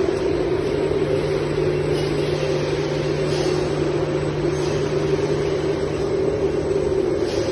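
Paper-towel production machinery running: a steady, loud mechanical hum and whir of the converting and packaging line, with a low steady drone that cuts out near the end.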